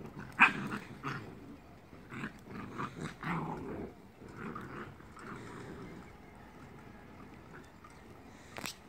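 Jindo dogs, an adult and a young puppy, growling at each other in play, in several short outbursts through the first four seconds. The loudest is about half a second in. A sharp click comes near the end.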